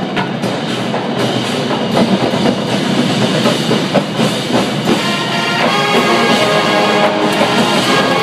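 Marching band playing live: a percussion-driven passage of drums and pit percussion, with the winds coming in on held chords about halfway through.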